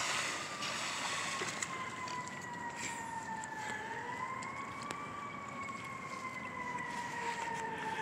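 Emergency vehicle siren wailing: its pitch falls slowly, rises again about four seconds in, then falls once more. A brief burst of water splashing at the very start.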